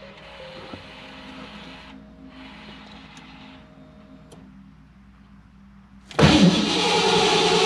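Starter motor cranking the Mustang's V8, coming in suddenly and loudly about six seconds in as the ignition is switched on, during an attempt to start the engine on its new Holley Terminator X fuel injection. Before that there is only a faint hum.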